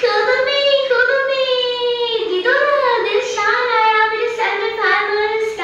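A woman's high-pitched voice singing in a sing-song way, with long held notes and pitch glides.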